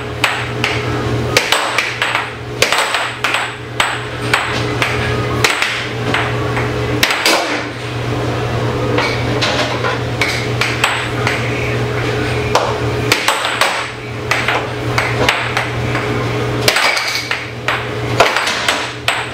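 Fast air hockey rally on a Tornado table: the plastic puck clacks sharply against the mallets and the table's rails, several knocks a second, over the steady hum of the table's air blower.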